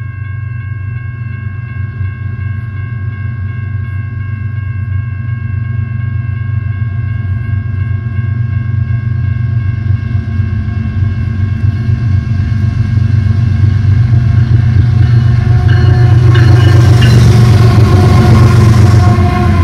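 Grade-crossing warning bell ringing steadily while an intermodal freight train approaches, its diesel locomotive rumble growing louder. The lead locomotives pass close by near the end, the loudest part.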